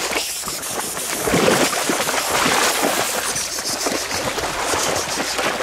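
A dog splashing and thrashing through shallow creek water as it hunts for carp, with continuous churning splashes.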